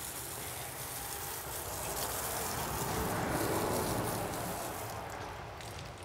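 Water from a garden hose spraying and splashing onto freshly sawn hardwood slabs, a steady hiss that swells in the middle and dies down near the end.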